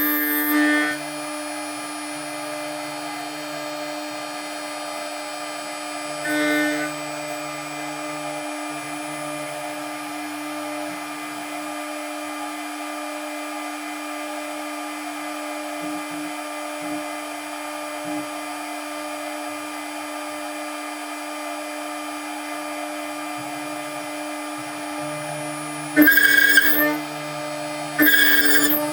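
Spindle of a DIY CNC milling machine running with a steady whine while its cutter mills steel. Short, louder bursts of cutting noise come at the start, about six seconds in, and twice near the end.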